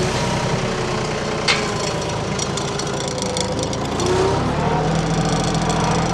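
An engine running steadily, with a single sharp crack about a second and a half in. The engine gets louder and lower-pitched about four seconds in.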